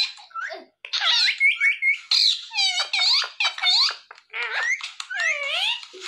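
Indian ringneck parakeets chattering: a quick run of squeaky calls that slide up and down in pitch, with a short break about a second in.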